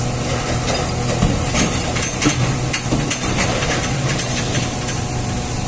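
Steady machinery hum with a constant hiss, and a few short sharp knocks about one and a half to three and a half seconds in as sengon logs are handled.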